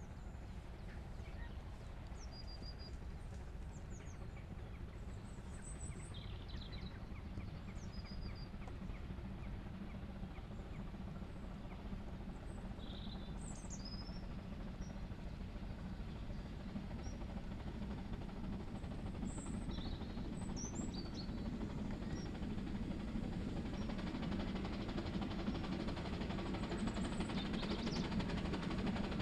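Narrow-gauge steam train worked by two steam locomotives, a low rumble that grows steadily louder as it approaches. Birds chirp now and then above it.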